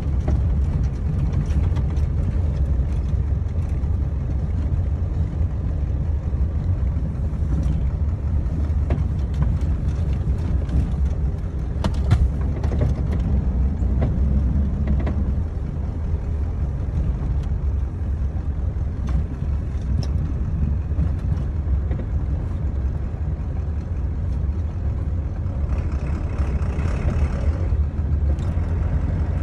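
Steady low rumble of a 1997 Ford F350's 7.3-litre Power Stroke turbo-diesel V8, heard inside the cab while the truck is driving, with a few sharp knocks or rattles about twelve seconds in.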